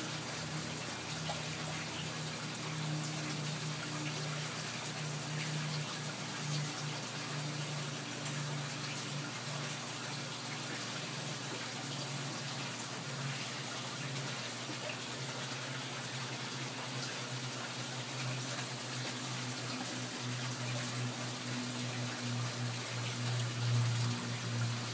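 Steady running and splashing water in an aquaponics fish tank, with a low steady hum underneath.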